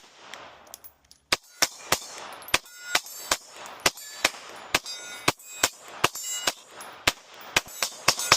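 A custom-ported Glock 17 9mm pistol fired in a rapid string emptying the magazine: about twenty shots at two to three a second, slightly uneven in pace, each followed by a short metallic ring.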